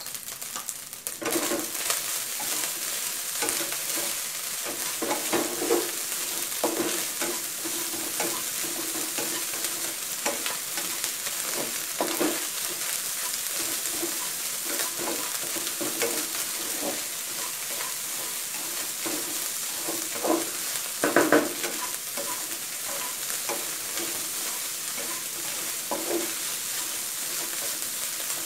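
Shrimp fried rice sizzling in a hot nonstick wok while a wooden spatula stirs and scrapes it in irregular strokes, the rice being dry-fried so the grains stay separate. The sizzle picks up about a second in, and a louder cluster of scrapes comes a little past the two-thirds mark.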